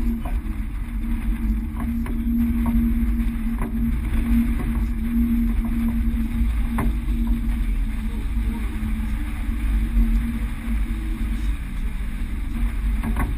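Sailboat under way: a steady low rumble with a constant hum, with a few short knocks now and then.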